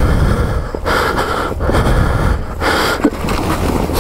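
Hard breathing and straining, with snow and branches rustling, as a rolled-over snowmobile is heaved by hand back over onto its track. The sounds come in several loud bursts about a second apart.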